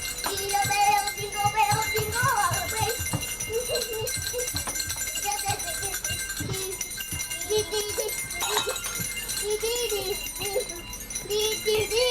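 Bells ringing and jingling continuously, many ringing tones sounding together, with rattling shakes and knocks.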